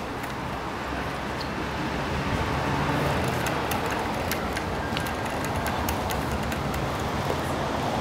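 Street traffic noise with a vehicle engine's low hum growing louder about two seconds in, plus scattered light clicks and ticks.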